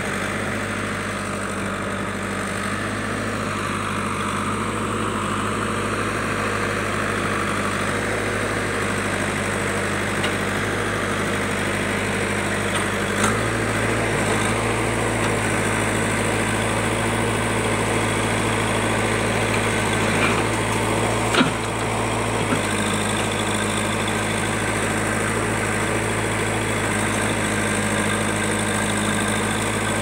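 JCB backhoe loader's diesel engine running steadily while the backhoe digs, its note changing about halfway through, with a few short knocks.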